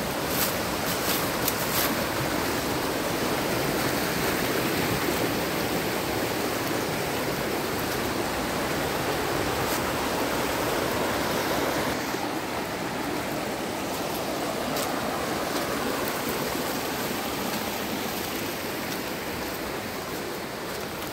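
Fast, shallow mountain stream rushing over rocks: a steady wash of water. A few short crisp clicks come in the first two seconds, and about halfway through the sound turns a little duller and quieter.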